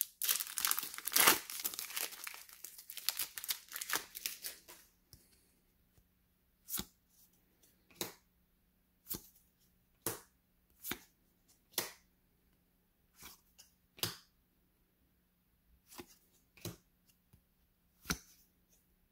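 Foil wrapper of a football trading-card pack being torn open and crinkled for the first few seconds. Then come short single clicks about once a second as the cards are flipped one by one through the stack.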